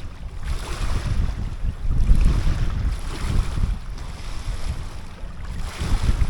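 Strong wind buffeting the microphone: a low, gusty rumble with a rushing hiss that swells and eases every second or so.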